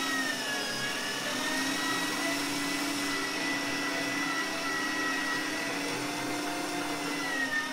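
Panasonic electric meat grinder running under load, its motor giving a steady whine as it minces vegetables, red peppers among them. The pitch sags slightly about a second in and again near the end as the load changes.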